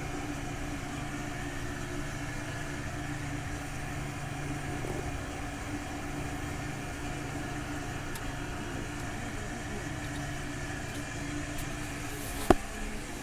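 Ashok Leyland Dost CNG light truck running steadily, an even hum with a few held tones over the engine note. A single sharp click sounds near the end.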